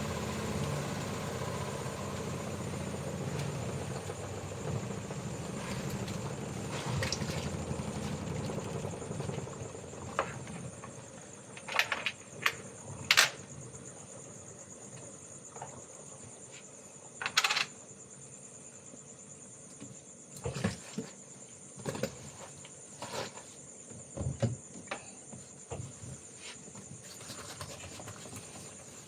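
Insects calling in a steady high chorus. A low engine rumble fades away over the first several seconds, and from about ten seconds in there are scattered knocks and clatters.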